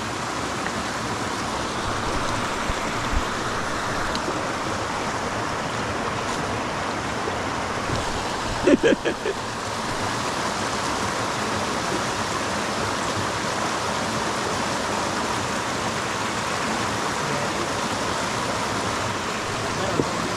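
Creek water running steadily, with a brief cluster of short pitched sounds about nine seconds in.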